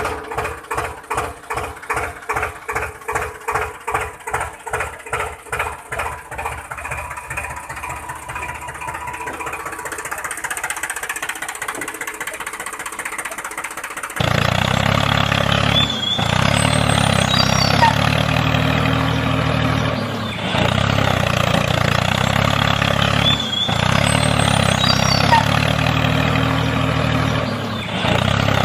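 Tractor engine chugging in slow, even beats, about three a second, that gradually quicken and run together. About halfway it cuts to a louder, steady running engine that dips briefly every few seconds.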